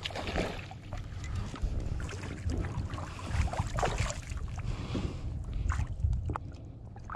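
A hooked spotted bass splashing in irregular bursts at the surface beside the boat as it is brought in and grabbed by hand, over a steady low wind rumble.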